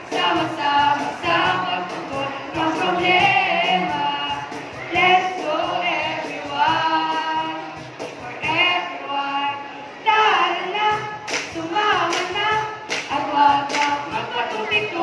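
A mixed group of students singing together in chorus, with a few sharp claps about eleven to thirteen seconds in.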